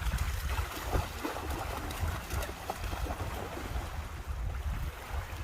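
Water lapping and splashing, under a low rumble of wind on the microphone.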